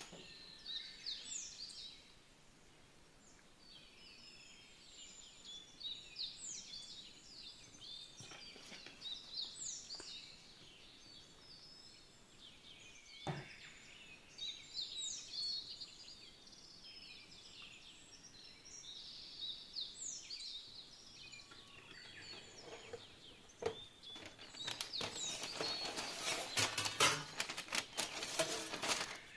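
Small birds chirping, clusters of short falling chirps every few seconds, with a single knock about halfway through. Near the end comes a louder run of dense rustling.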